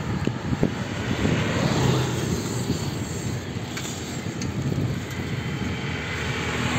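Wind buffeting the microphone and road rumble from a bicycle riding along an asphalt road, a steady rushing noise with a few short knocks in the first second.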